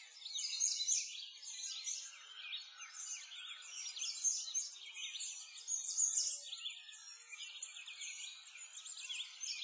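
A dense chorus of small birds chirping, with many short, quick chirps overlapping without a break.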